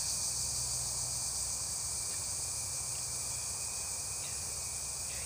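Steady, high-pitched chorus of insects, such as crickets, with a faint low hum beneath it.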